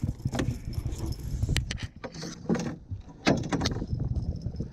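Several sharp knocks and clicks with a metallic rattle as gear is handled on the deck of a bass boat, over a low rumble of wind on the microphone.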